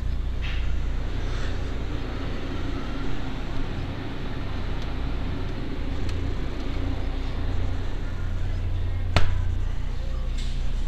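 Steady low hum and hiss of a supermarket aisle beside refrigerated display cases, picked up by the small built-in microphone of camera sunglasses, with one sharp click about nine seconds in.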